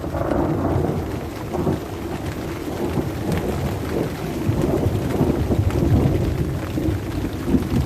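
Thunder rumbling low and fairly evenly after a close lightning strike, with steady rain falling and pattering.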